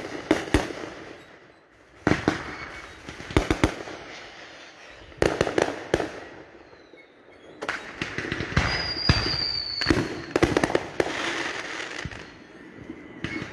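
Fireworks going off: sharp bangs in clusters, with crackling between them. A thin high whistle, falling slightly, sounds about nine seconds in.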